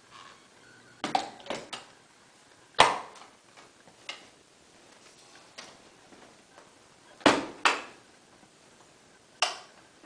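Hard plastic clicks and knocks as a clear dust container and its red cap are handled and fitted into an upright vacuum cleaner. The sharp knocks come at irregular intervals, the loudest about three seconds in and two close together near the end.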